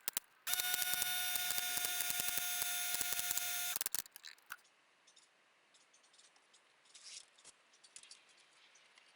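A handheld power tool motor runs steadily at one pitch for about three seconds, then cuts off. Faint clicks and taps of parts being handled follow.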